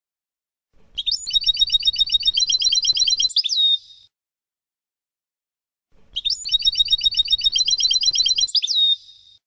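European goldfinch song in the Palestinian 'Abu Khalil' style: two near-identical phrases of about three seconds, each a fast run of repeated high notes ending in a falling slur, with a pause of about two seconds between them.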